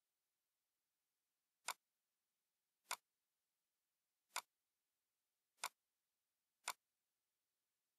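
Five sharp, separate computer mouse-button clicks, about a second or so apart, against near silence.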